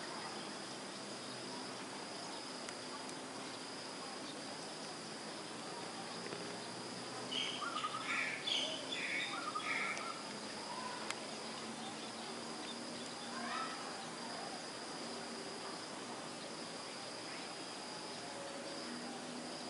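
Insects chirring on one steady high note. A bird calls several times in quick succession about halfway through, then once more a few seconds later.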